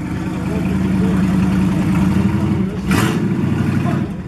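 Car engine running at a steady speed, with a sharp crack about three seconds in.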